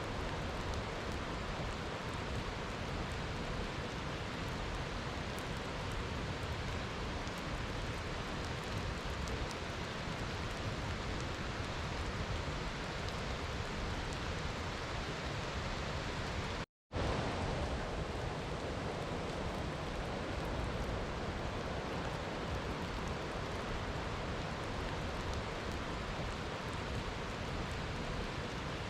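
Steady rain falling, an even, dense hiss with no pauses in the downpour. About two-thirds through, it cuts out completely for a fraction of a second and comes straight back, a splice in the recording.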